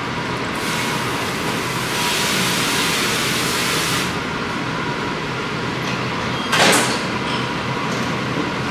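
Soy sauce poured in a thin stream from a jug into a stainless steel pan of fish, a steady hiss for the first few seconds, over the constant hum of a commercial kitchen. About six and a half seconds in, a short loud clatter.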